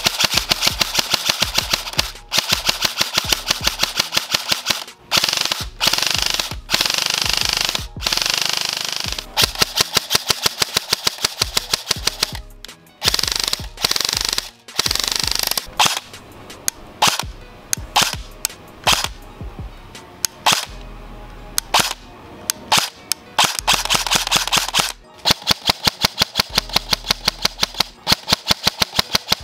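Classic Army EC2 airsoft electric rifle firing on an 11.1 V LiPo battery: very fast full-auto bursts of sharp cracks with short gaps between them. A few slower strings of single shots come in between.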